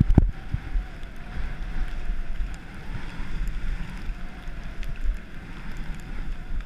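Skis sliding over the snow of a piste in a steady hiss, with wind buffeting the camera's microphone in low thumps throughout.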